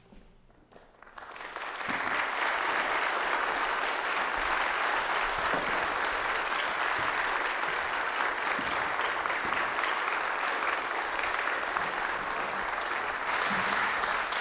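Audience applauding. The clapping starts about a second in and quickly builds to steady applause.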